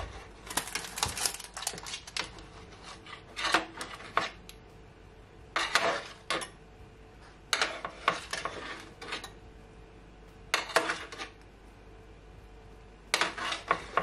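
Metal spoon scraping and clinking against a roasting tray and wire rack while scooping up the pan juices to baste baked chicken wings, in short runs of clinks every second or two with a quiet gap near the end.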